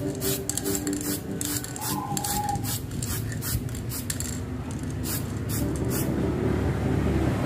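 Aerosol spray can of clear lacquer being worked in a quick, irregular series of short hissing bursts, which stop about six seconds in.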